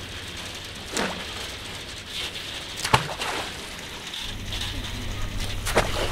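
Wet steel chain of a hand-pulled river ferry rattling as it runs through its guide tube, with sharp clanks about a second in, near three seconds and near the end. A low steady rumble comes in a little past halfway.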